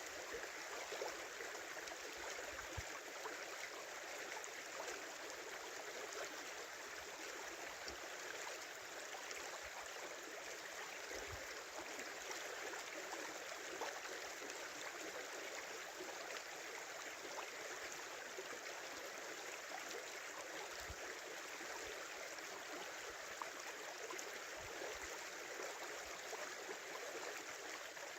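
Small river flowing steadily, a continuous babbling rush of water.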